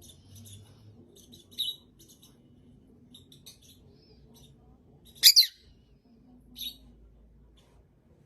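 Parrot making short, high chirps and clicks, with one loud double squawk about five seconds in and a shorter call a little after.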